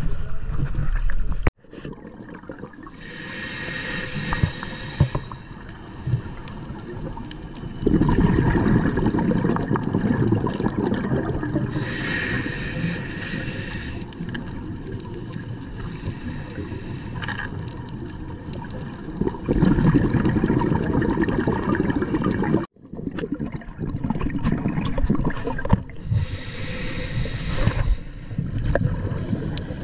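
Splash of a diver dropping into the sea, cut off about a second and a half in. Then the muffled sound of a camera underwater: low rushing water noise with a few bursts of gurgling bubbles a couple of seconds long, such as a scuba diver's exhaled breath.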